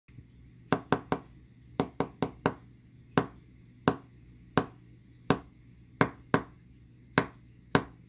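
A ballpoint pen tip tapping on a wooden tabletop, sending a name in Morse code. It opens with a quick run of three taps, then a quick run of four, followed by slower, evenly spaced single taps.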